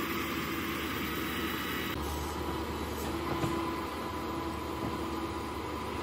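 Utility bucket truck running with a steady engine hum, with an abrupt change in the sound about two seconds in and a short knock about a second and a half later.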